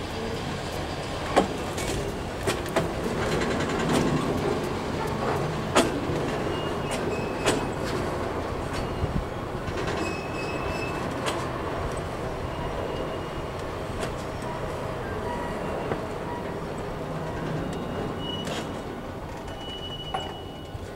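Freight train of tank cars rolling past: a steady rumble of steel wheels on rail, broken by sharp clacks and brief high-pitched squeals every few seconds.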